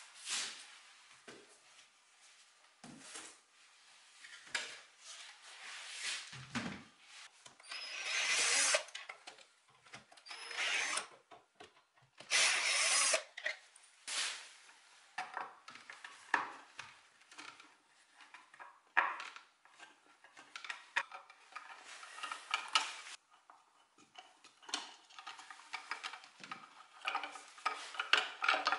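Workshop sounds of an old wooden chair being taken apart: irregular knocks, scrapes and clicks of the wooden frame, metal brackets and hand tools. There are two short power-tool bursts, about eight and twelve seconds in.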